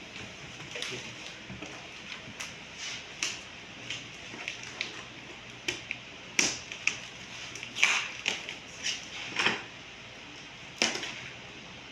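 Packaging and a plastic part being handled by hand: irregular clicks, taps and crinkles, with a few louder knocks about halfway through.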